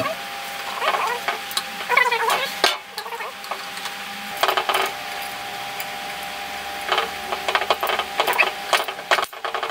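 Steel parts of a cast-steel Rockinger hitch jaw clinking, knocking and scraping as they are handled and fitted together on a steel workbench, in several short clusters of sharp metallic clinks.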